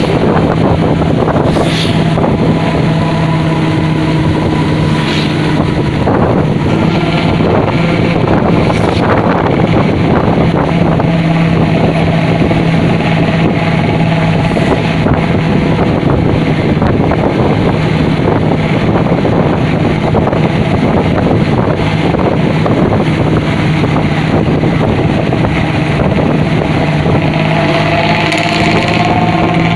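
Diesel bus engine running through a 'ngorok' (snoring) exhaust: a loud, steady, deep drone that rises in pitch near the end as the engine revs up.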